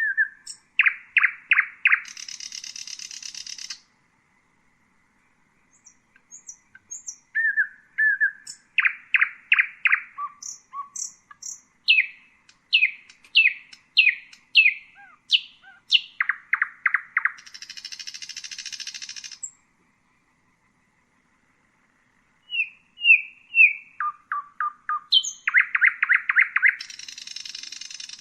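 Common nightingale singing three song phrases with short pauses between them. Each phrase runs from short whistles and rapid repeated notes into a fast, dry, high trill.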